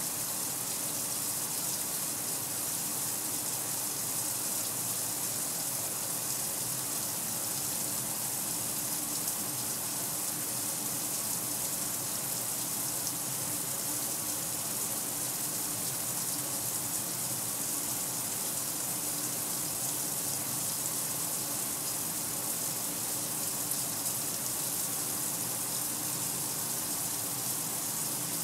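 Kenmore 800 Series top-load washer filling, with a steady, unbroken rush of water pouring into the tub.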